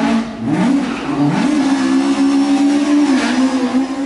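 Ford Escort Mk2 rally car's engine under hard acceleration: the revs drop and climb sharply twice in the first second and a half, then are held high and steady, easing slightly about three seconds in.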